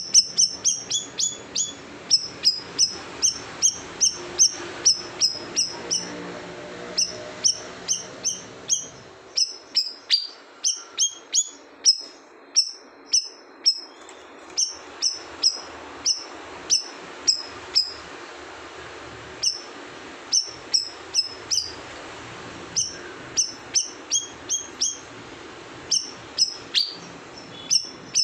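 Blue-winged leafbird (cucak rawis) calling in a long, rapid series of short, sharp, high notes that drop quickly in pitch, about two or three a second, with a brief pause about two thirds of the way through.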